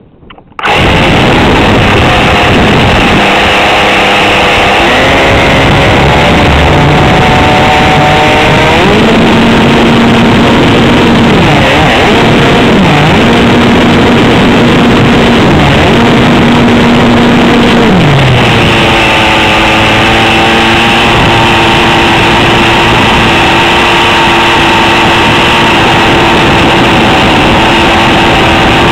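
ASP 52 two-stroke glow engine on a tuned pipe starts up about half a second in and runs hard, very loud from right beside it on the model's airframe. Its pitch rises, dips and settles several times as the throttle and mixture are worked on the ground.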